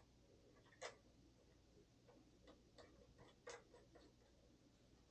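Faint, irregular small clicks and ticks of the screw-on antennas being threaded by hand onto DJI FPV Goggles, the sharpest about a second in and again past the middle.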